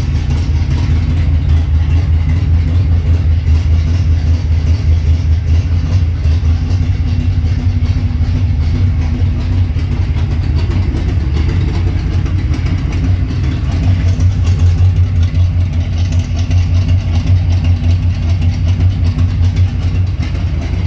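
A loud, steady low engine rumble, like a motor idling, unchanging throughout.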